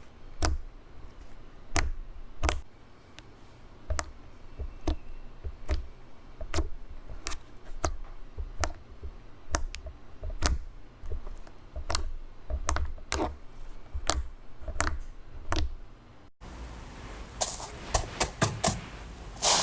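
Clear slime being squeezed and poked by hand, giving irregular sharp clicks and pops about one or two a second. Near the end an abrupt change in the background brings a quicker run of pops.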